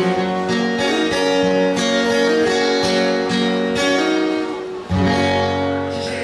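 Two acoustic guitars strumming chords. About five seconds in they strike a final chord that rings and begins to fade, ending the song.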